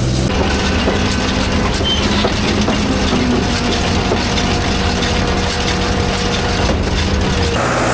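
Tractor engine running under a hay implement working in the field, with rapid, irregular mechanical clicking and rattling over the engine hum.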